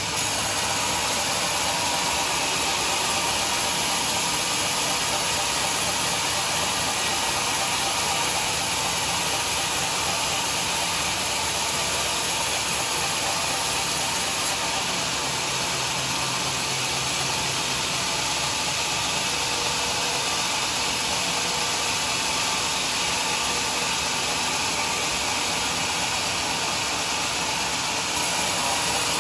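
Homemade sawmill machinery running with a steady, even noise that never breaks off.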